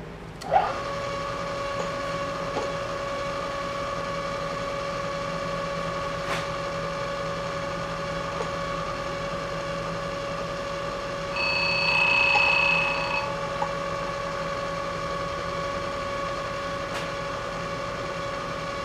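Vertical milling machine spindle switched on about half a second in, then running with a steady whine. About twelve seconds in, a brief, louder, higher-pitched squeal lasts under two seconds.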